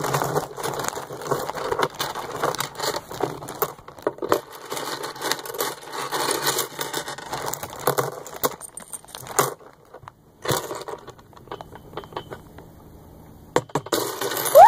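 Seashells clattering and rattling against each other as they are handled and gathered up, a dense run of small clicks that thins out about nine seconds in, with a few last clicks and then a quiet stretch.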